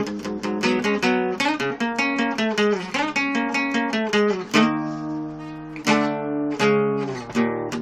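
Acoustic guitar played as a rock riff: quick, rhythmic strummed chords, two chords left to ring about two-thirds of the way through, then the fast strumming picks up again near the end.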